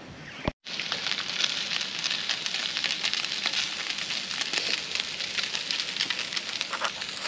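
Bacon sizzling on a portable griddle: a steady hiss thick with small crackling pops, starting about half a second in.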